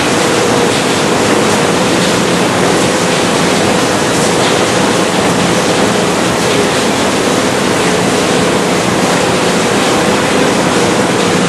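Steady din of factory machinery: an even, unbroken rushing noise with a faint constant hum underneath.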